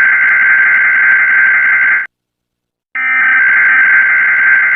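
A loud, steady electronic tone of several pitches at once. It cuts off about two seconds in and starts again after a short gap.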